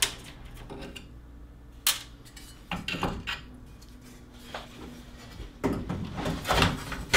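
Light metallic clinks, knocks and clatter of a perforated sheet-metal shield being handled and set down over the circuit boards on a TV's metal chassis. A sharp knock comes about two seconds in, and a denser clatter follows near the end.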